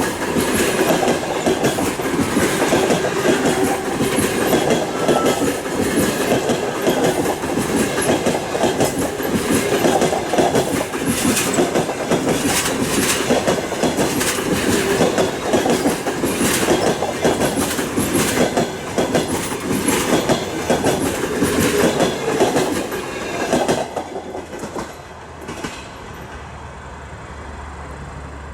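Passenger train rolling past at speed, its wheels clattering over the rail joints in a steady clickety-clack. The clatter drops away about 24 seconds in as the end of the train passes, leaving a faint low rumble.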